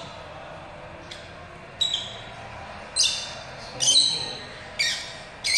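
Lovebird giving a string of short, sharp, high-pitched chirps, five of them about a second apart after a quiet first couple of seconds.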